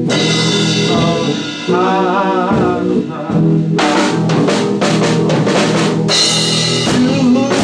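Instrumental break in a blues-rock song: a cymbal crash at the start, a wavering melodic line, then a steady drum-kit beat from about halfway, with another cymbal crash near the end.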